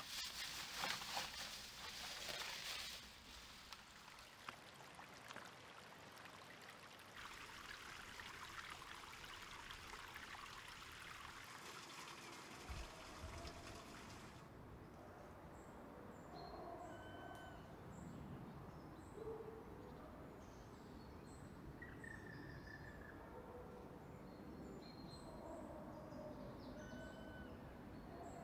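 A plastic rubbish bag rustling and crinkling as litter is stuffed into it for the first few seconds, then creek water trickling with a steady hiss. About halfway through the water sound stops abruptly and scattered short whistled bird calls are heard over a faint background for the rest.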